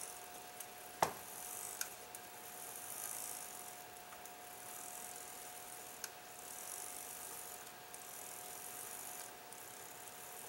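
Grandfather clock movement running its strike train: brass gear work whirring in short spells, with one sharp metallic click about a second in, a few lighter clicks, and a faint steady ringing tone throughout.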